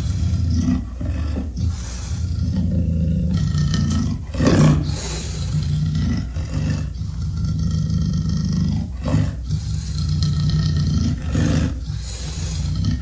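Creature sound effect for a fictional water dragon: deep, continuous roars over a low rumble, broken by repeated sharper bursts. The loudest comes about four and a half seconds in.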